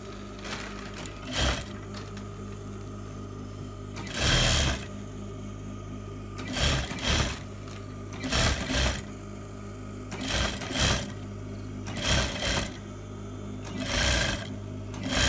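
Sewing machine edge-stitching a waistband in short bursts about every two seconds, several in quick pairs, with a steady low hum between them.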